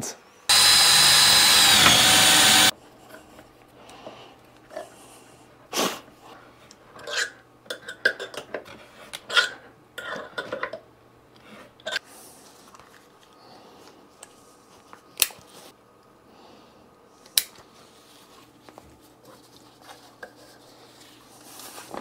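A loud whir lasting about two seconds, its pitch dropping near the end and then cutting off. Scattered clicks and rustles follow as a plastic water-filter bag and its metal hanging ring are handled and hung up, over a faint steady hum.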